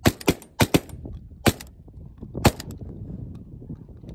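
Several shotguns fired in a quick volley, about six sharp shots in the first two and a half seconds, some overlapping too closely to come from one gun.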